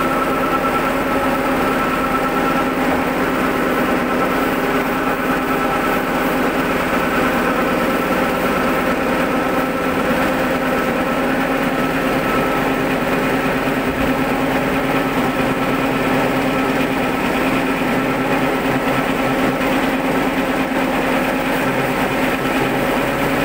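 Soybean cracking and dehulling machine running steadily: a constant mechanical hum with the dense rattle of cracked soybeans streaming down its chute.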